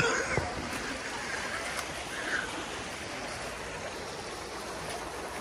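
Shallow rocky creek, water running steadily over stones.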